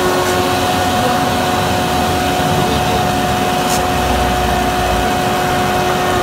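A С25-4 four-sided planer-moulder running idle with no wood being fed, its electric cutter spindle turning at speed: a loud, steady machine hum over two constant tones.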